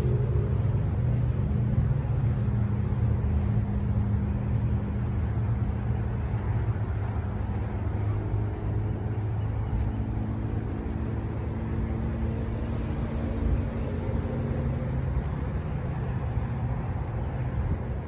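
Steady low engine-like rumble with a few hum tones that shift slightly in pitch, like a running motor.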